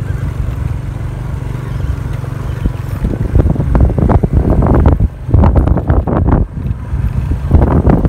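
Motorcycle engine running while riding over a dirt track, with wind buffeting the microphone in gusts from about three seconds in.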